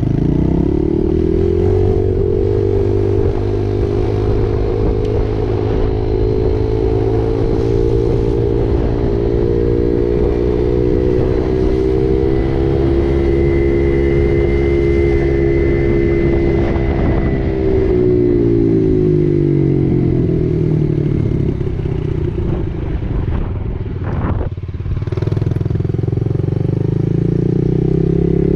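Dirt bike engine running under way. Its pitch rises in the first couple of seconds and holds steady for a long stretch, then falls as the bike slows from a little past halfway. A brief knock follows, and the revs climb again near the end.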